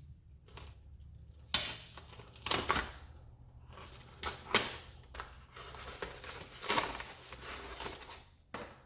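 A package being opened by hand: irregular tearing and crinkling of the packaging, with a few sharp cracks and knocks, the first about a second and a half in.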